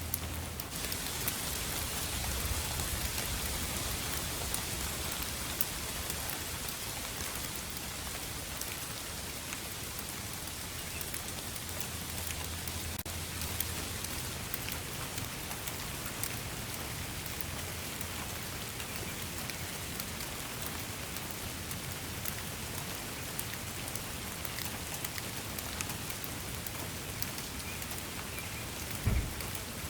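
Steady rain falling, a continuous hiss with individual drops ticking and a low rumble underneath. A single brief low thump comes near the end.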